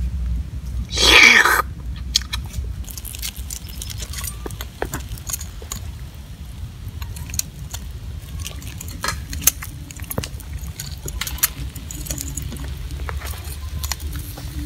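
Metal tongs clicking and scraping against a wire grill as crabs are turned over a charcoal fire, with scattered crackles over a steady low rumble. A short, loud rushing burst comes about a second in.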